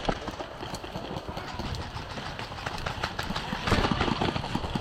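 Quick running footsteps with thumps and knocks of gear, close to the microphone.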